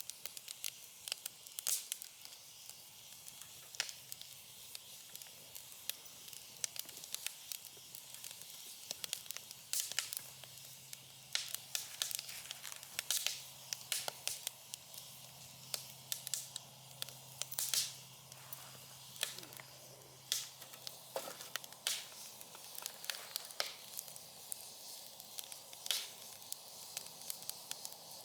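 Campfire wood burning and crackling: irregular sharp pops and snaps over a soft hiss.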